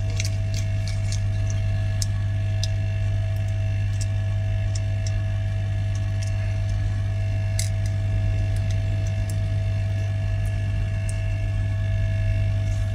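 A steady low hum that stays loud and unchanging throughout, with fainter steady tones above it. Small sharp clicks come now and then as the phone's parts and connectors are handled.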